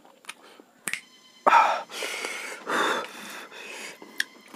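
Dry, crisp roti being broken and crumbled between the fingers: a few sharp clicks, then three louder crackling bursts in the middle, and one more click near the end.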